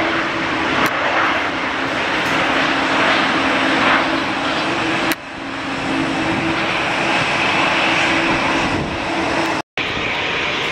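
Airliner engine noise: a loud, steady rush with a low steady hum under it. The sound dips sharply about halfway through and cuts out for a split second near the end.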